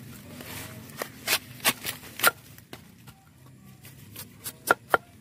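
Machete blade cutting and stripping the dry, papery sheaths off a bamboo shoot: about five quick crisp cuts in a row, then a pause, then two more near the end.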